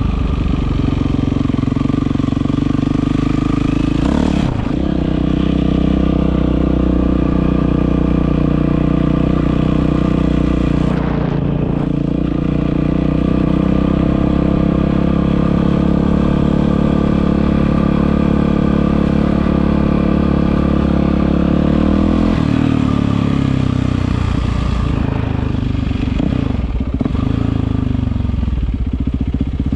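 Yamaha WR450F single-cylinder four-stroke engine running loud and steady through an Akrapovic exhaust. Its note shifts about 4 seconds in, again around 11 seconds, and settles to a different steady pitch from about 22 seconds.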